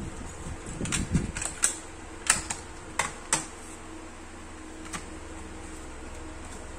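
Clear plastic cassette case being handled and its paper J-card insert pulled out and unfolded: a quick series of sharp plastic clicks and snaps between about one and three and a half seconds in, and one more click near five seconds, over a steady low hum.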